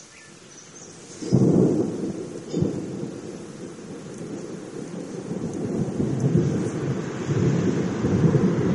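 Thunder: a sudden loud clap about a second in, a second clap a second later, then a long low rumble that builds again near the end.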